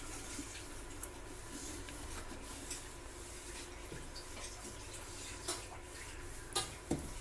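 Paper towel wiping the inside of a microwave oven after vinegar steaming, a faint rubbing with a few light knocks, two of them close together near the end.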